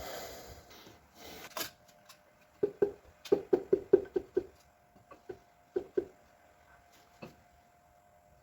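Light metallic knocks and clinks from engine parts and hand tools being handled while pistons are taken out of a stripped-down engine: a quick run of about a dozen around the middle, then a few single ones, after some soft rustling near the start.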